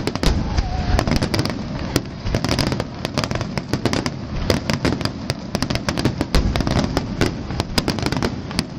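A fireworks finale barrage: many shells bursting at once in rapid, overlapping bangs and crackles over a continuous low rumble.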